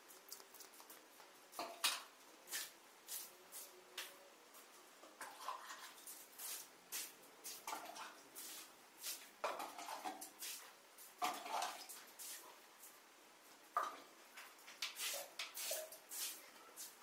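Irregular knocks and clatter of buckets and a plastic scoop, with water splashing, as water is scooped from a bucket and poured into a sand-and-cement heap to mix tile mortar.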